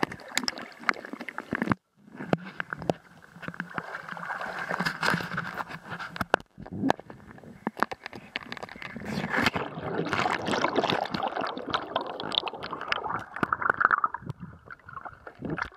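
Muffled pool water gurgling and sloshing against a waterproof camera at and below the surface, with many small clicks and knocks. The sound cuts out briefly about two seconds in.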